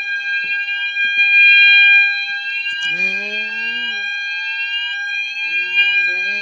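Roshni fire alarm sounders on the BS sweep tone, a rising whoop repeating about once a second, sounding together with a KAC sounder holding a steady continuous tone.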